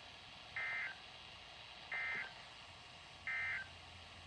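Emergency Alert System end-of-message data signal from a NOAA Weather Radio broadcast: three short, identical buzzy two-tone data bursts about a second and a half apart, marking the end of the warning.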